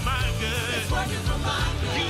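Live worship band music: bass and drums under a full mix, with a lead melody wavering in pitch over the top.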